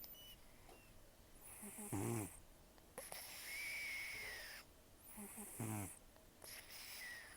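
Old cat snoring in its sleep: a rough, rasping snore on each breath, with a hissy breath and a thin whistle between the snores, about two breaths in all. The owner calls his snoring and nose breathing very rough.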